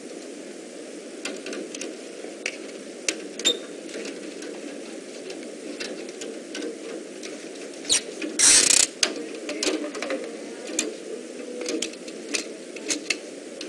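Screwdriver tightening wires into a circuit breaker's terminal screws, with the breaker handled in the hand: scattered small clicks and ticks, and one louder scrape a little after eight seconds in, over a steady background hum.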